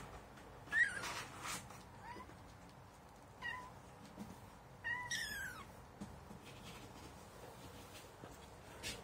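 Young tabby kitten meowing about four times, high-pitched, each call falling in pitch, the longest about five seconds in.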